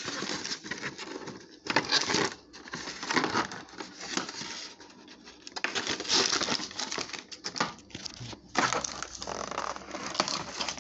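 Plastic and cardboard toy packaging crinkling and tearing in irregular bursts as a small die-cast airplane is worked out of it by hand.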